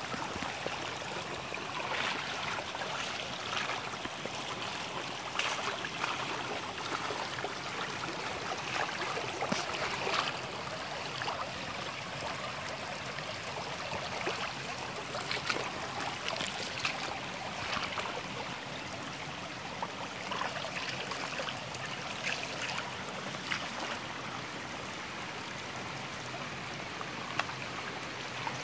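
Shallow spring-fed brook running over gravel and fallen branches: a steady babble of water with many brief little splashes.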